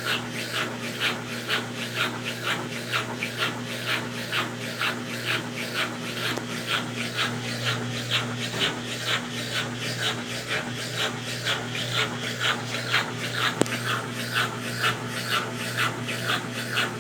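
Consul Facilite 10 kg washing machine in its wash stage with a load of blankets: a steady motor hum under a rhythmic swishing and rubbing of water and fabric, a few strokes a second.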